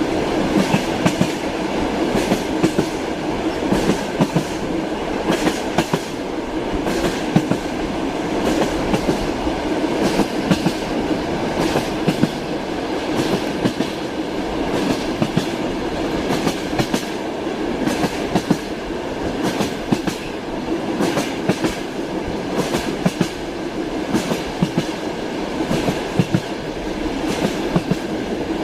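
Train running along the track: a steady rolling rumble with the wheels clacking over the rail joints in repeated clusters of knocks.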